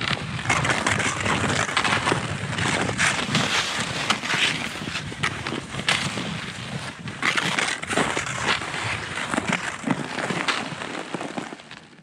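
Skis crunching and scraping over hard snow, roughly one stride a second.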